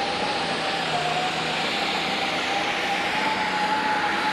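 Turbocharged diesel engine of a Pro Stock pulling tractor running flat out under full load during a pull. A steady high whine sits over the heavy engine noise.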